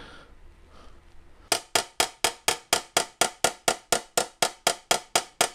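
A chasing hammer tapping the brass bell of a vintage Martin tenor saxophone in a quick, even run of light strikes, about four to five a second, starting about a second and a half in. Each strike rings briefly. The hammer is blending the high ridges left from raising a dent back into the bell.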